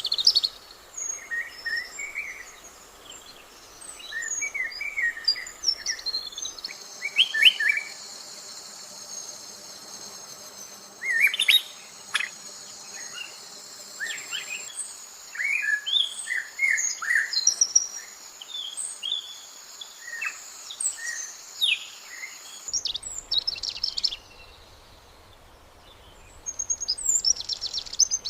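Wild birds chirping and calling in short, scattered notes, joined from about six seconds in by a steady high buzz that stops about twenty-two seconds in.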